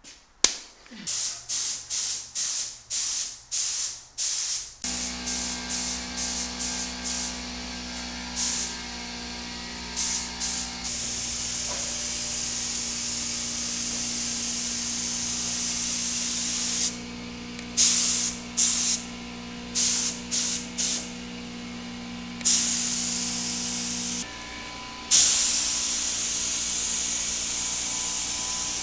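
Air-fed paint spray gun spraying primer onto a truck bed: at first a quick run of short hissing bursts from brief trigger pulls, then long steady passes of hiss broken by more short bursts. A steady low hum runs underneath from about five seconds in.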